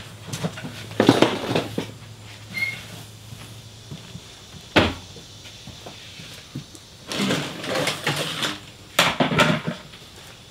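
Clutter being handled and moved: irregular rustling and clattering with a single sharp knock about halfway through, and longer stretches of rustling near the end.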